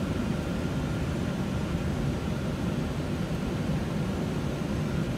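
Steady rush of airflow and engine noise aboard an airliner descending on final approach to land.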